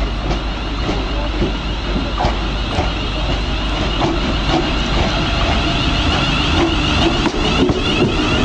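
London Midland Class 350 Desiro electric multiple unit running into the platform, with a high whine and wheels clicking over the rail joints about every half second. It grows louder as the train draws alongside.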